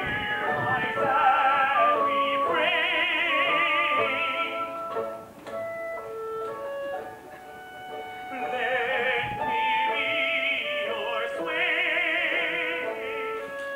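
Operatic singing with a strong vibrato over instrumental accompaniment. The voice comes in two long phrases, with a quieter, mostly instrumental stretch between them around the middle.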